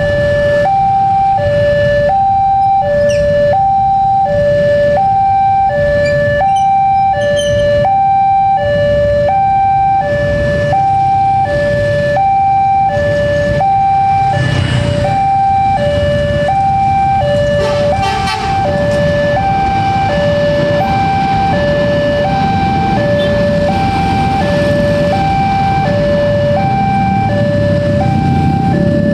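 Railway level-crossing warning alarm sounding continuously, an electronic two-tone signal that switches back and forth between a higher and a lower tone in an even rhythm. Underneath it run the engines of the motorbikes waiting at the lowered barrier.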